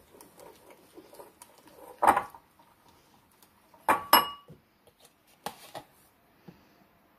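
Silicone whisk stirring thick powdered-sugar icing in a ceramic bowl with soft scraping strokes. There is a loud clatter about two seconds in, then two ringing clinks of the bowl about four seconds in, and a few lighter knocks as the whisk is laid in the bowl.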